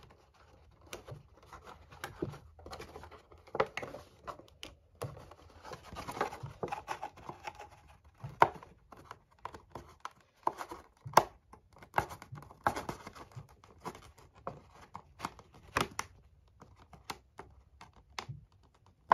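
Cardboard and plastic doll packaging being handled and worked open by hand: irregular scratching, crinkling and tearing, with sharp clicks and taps, the loudest twice in the middle.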